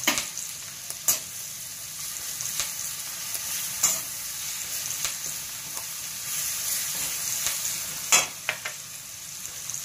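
Hot oil sizzling in a metal kadhai as grated garlic and ginger fry with cumin, asafoetida and ground spices, the tempering (tadka) for a chole gravy. A metal spatula stirs through it, with a few sharp clicks as it knocks the pan.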